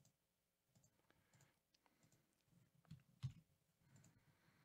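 Near silence with a few faint computer mouse clicks, the two clearest close together about three seconds in.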